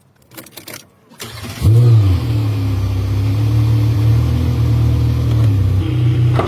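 Mercedes G36 AMG's 3.6-litre straight-six cranking and catching about a second and a half in, its revs flaring briefly, then settling into a steady idle.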